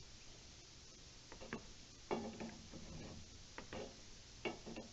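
An adjustable crescent wrench working on the water heater relief valve's discharge pipe: a few faint, scattered metal clicks and knocks as the wrench is fitted and turned.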